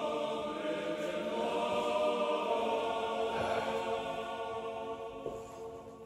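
Background music of held, choir-like voices, fading down near the end.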